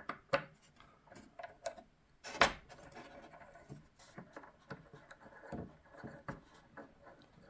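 Small clicks, taps and rubbing from handling the parts of a folding knife being taken apart, with one sharper click about two and a half seconds in.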